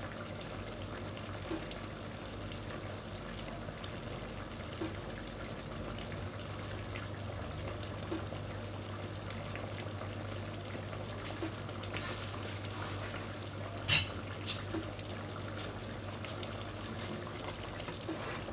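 A pot of coconut curry bubbling on the stove: steady bubbling with scattered small pops over a low steady hum. A few sharper clicks come about fourteen seconds in.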